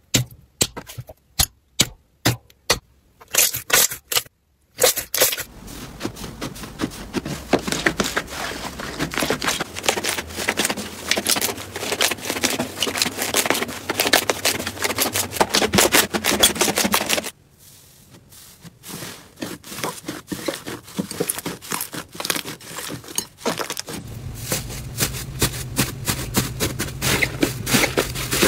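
Slime being pressed and squished by hand: sharp, separate pops and clicks at first, then dense crackling. A low hum joins in the last few seconds.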